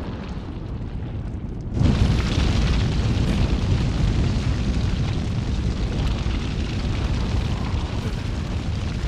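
A low rumble, then a sudden explosion about two seconds in, followed by a loud, continuous rumble and crackle of burning.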